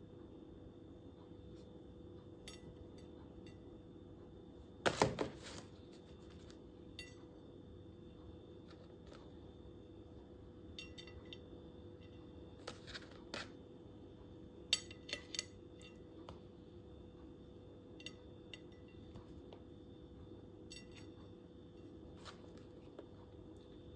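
Light clicks and taps on a ceramic plate as grape halves are set down and nudged into place by hand, scattered and irregular, with the loudest few about five seconds in. A faint steady hum lies underneath.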